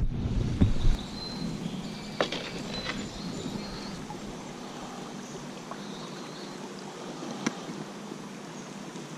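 Wind buffeting the microphone for about the first second, then the steady hiss of river current running past a drifting kayak, with a couple of faint clicks.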